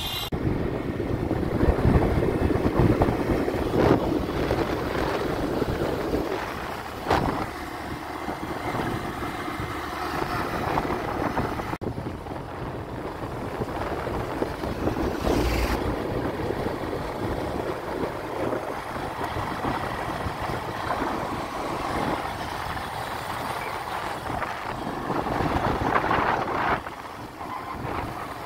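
Road noise from a moving vehicle: steady engine and tyre rumble with wind on the microphone, plus a few brief knocks.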